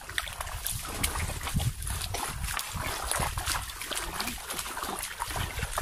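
Irregular squelching and splashing of feet sinking into and pulling out of soft, waterlogged mangrove mud.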